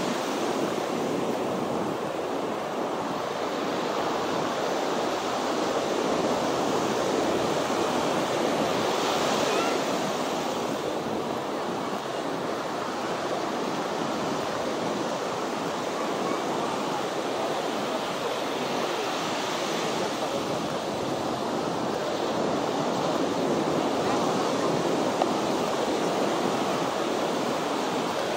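Ocean surf breaking on the shore: a steady rush that swells about every ten seconds as waves come in.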